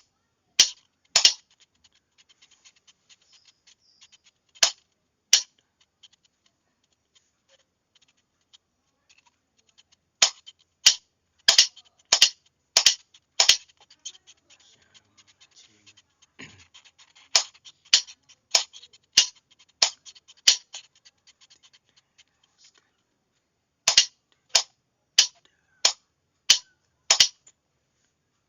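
Sharp, loud clicks of a Morse signalling key or switch sending code characters, in short groups of evenly spaced clicks about two-thirds of a second apart, with long gaps between the groups. Fainter fine ticking sounds between the groups.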